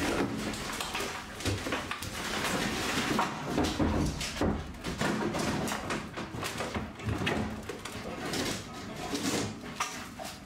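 Wooden interior panelling being torn out with a pry bar: a continuous run of irregular knocks, cracks and clattering of boards.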